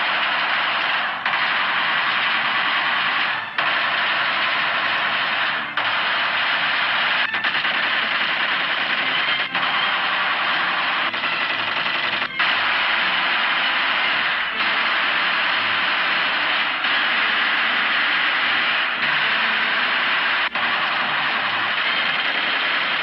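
Sustained automatic gunfire at about 600 shots a minute, in long bursts with brief breaks roughly every two seconds. It is heard on old, narrow-band film sound.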